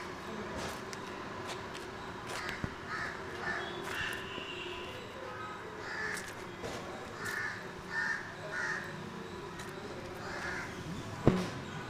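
Crows cawing repeatedly, about nine short harsh calls, over a faint steady hum, with one sharp knock near the end.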